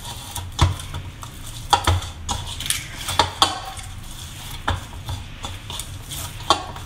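Hands kneading oiled dough in a stainless steel bowl: irregular knocks and light clinks of the metal bowl, some with a dull thud, as the dough is pressed and turned.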